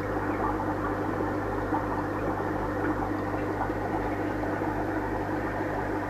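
Steady electric hum with an even hiss over it, unchanging throughout, typical of an aquarium pump running.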